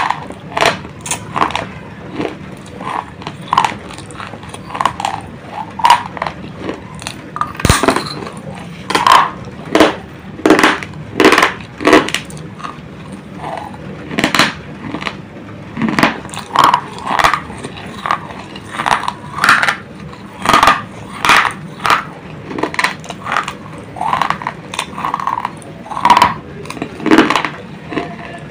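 Close-up chewing of pieces of baked terracotta clay pot: a run of sharp, irregular crunches, roughly one or two a second.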